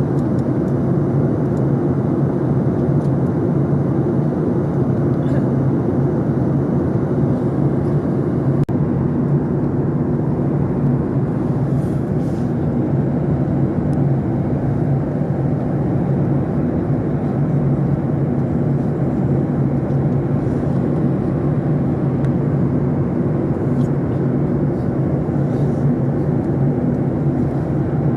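Airplane engine running with a steady, even drone: a low hum holding several constant tones.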